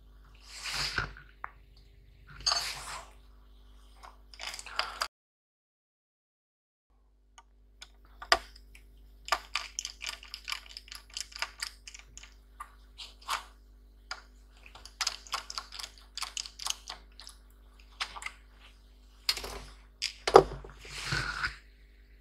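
Handling noise from a laptop motherboard being picked up, turned over and set down on a foam pad: short rustles, then a long run of small clicks and taps, with a faint steady electrical hum underneath. The sound drops out completely for about two seconds, some five seconds in.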